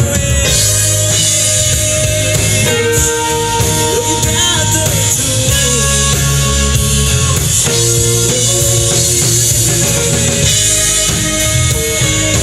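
Country-rock band playing an instrumental break: a lead guitar bending notes over drum kit and bass, with no singing.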